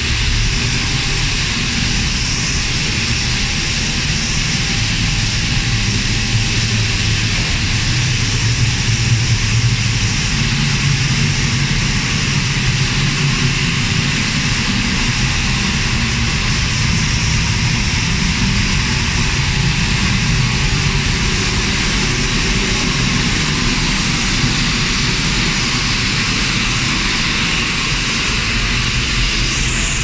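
Steady, even mechanical noise of an industrial steam boiler running: the burner firing and its combustion-air blower fan turning.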